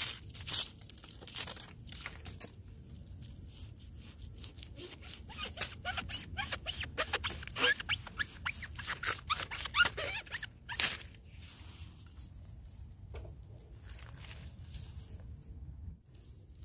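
Dry leaf litter crackling and rustling as a resinous polypore bracket fungus is handled and cut at with a knife: many short, sharp crackles, busiest for the first ten seconds or so, then quieter.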